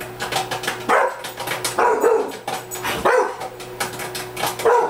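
A Rottweiler barks four times, about a second apart, at microwave popcorn popping, which it takes for a threat. Sharp pops of the popcorn crackle steadily underneath.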